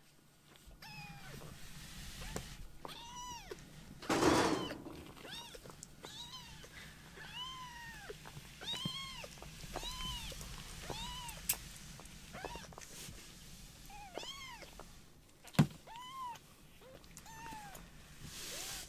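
A very young kitten mewing over and over as it walks, short high-pitched mews that rise and fall, about one a second. A loud rustling bump comes about four seconds in and a sharp tap near the end.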